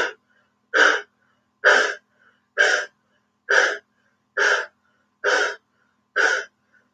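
A woman doing dog breath (lion breath) pranayama: short, forceful exhalations through the wide-open mouth with the tongue stretched out, about one a second in a steady rhythm, with silence between them.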